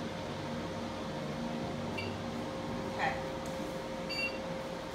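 Soprano Ice laser hair removal machine humming steadily as it stands ready. There is a faint short beep about two seconds in, a brief soft sound near three seconds, and a short electronic beep a little after four seconds.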